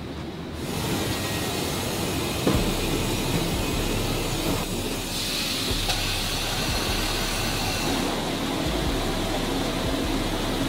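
Steel-mill machinery running: a steady rumble and hiss, with a single sharp clank about two and a half seconds in. The hiss turns brighter about five seconds in.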